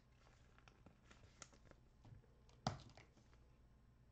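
Near silence with faint clicks and rustles of trading cards and packs being handled, and one sharper tap about two and a half seconds in.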